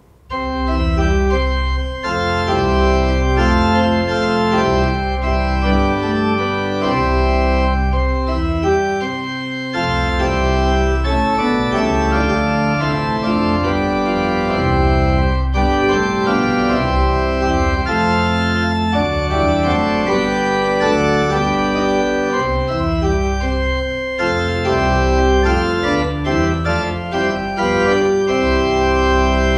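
Church organ playing full sustained chords over deep pedal bass notes, the chords changing every second or so, with brief breaks about ten seconds in and again near 24 seconds.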